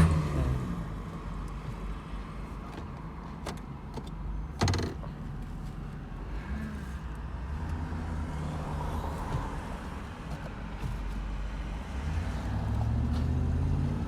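GMC engine running at idle after an easy restart, a steady low hum. A single sharp knock comes about four and a half seconds in. The engine note rises a little near the end.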